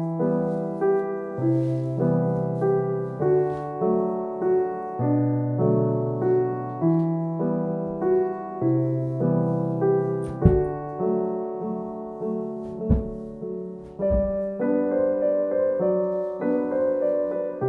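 Background piano music: a gentle melody of struck notes, with a few brief soft thumps about two-thirds of the way through.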